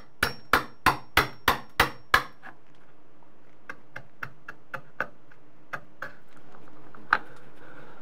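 Hammer tapping a wood chisel about three times a second, cutting a strike-plate mortise into a wooden door jamb. After about two seconds the blows stop, and lighter, scattered clicks follow as the chisel pares out the recess by hand, with one sharper click near the end.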